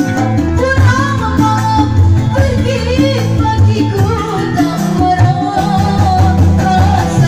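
Live dangdut band music: a woman singing a wavering melody into a microphone over hand drums and keyboard, with a steady beat.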